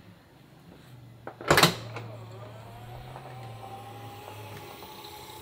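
Tesla Model S power liftgate unlatching with a sharp clunk about a second and a half in, then its motor whining steadily, the pitch creeping slowly up, as the hatch rises.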